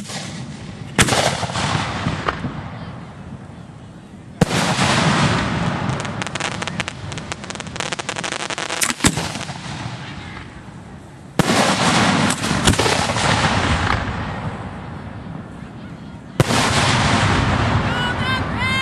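Fireworks fired from ground racks at close range. Several volleys go off, starting about a second in, about four seconds in, about eleven seconds in and near sixteen seconds; each opens with a sharp bang and runs on for a few seconds as dense crackling and popping.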